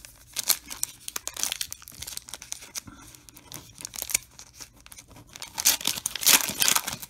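Foil wrapper of a Topps trading-card pack crinkling in the hands and tearing open, a run of sharp crackles. The crinkling and tearing is loudest in a burst near the end as the wrapper is pulled apart from the cards.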